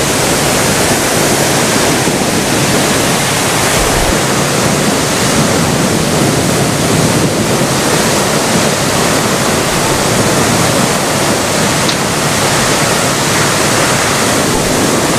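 Fire hydrant knocked off by a car, with water shooting from the open main and raining back down: a loud, steady rush.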